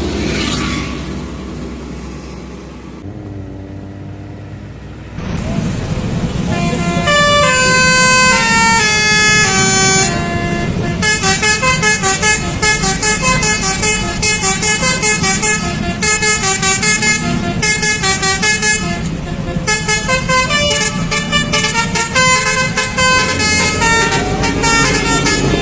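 Heavy vehicle engines running. From about five seconds in, multi-tone telolet horns play rapid melodic runs of notes over the engine rumble: first descending runs, then a quick repeating tune.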